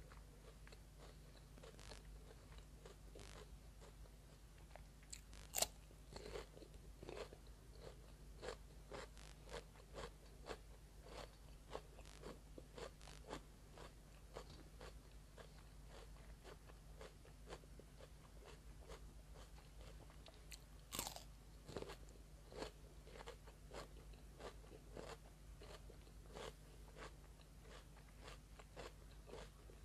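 Raw cucumber being bitten and chewed close to the microphone: crisp crunching chews about two a second, with two much louder cracks, one about five seconds in and another about two-thirds of the way through.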